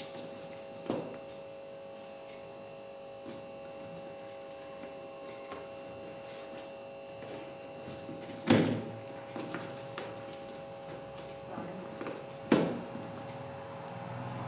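A few sharp knocks and thuds, the loudest about eight and a half seconds in and another about four seconds later, over a steady electrical hum.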